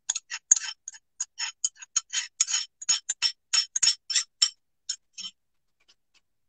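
A utensil beating yogurt thinned with a little water in a small bowl: quick clicking taps against the bowl, about five a second, stopping about five seconds in.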